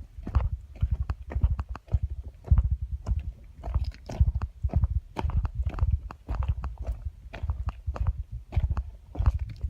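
A person chewing and crunching a mouthful of berries close to the microphone, a quick, irregular run of soft thumps and clicks.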